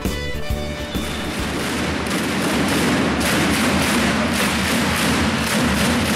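Packed volleyball-arena crowd cheering and beating out a fast, even rhythm of claps and bangs. A music sting fades out in the first second.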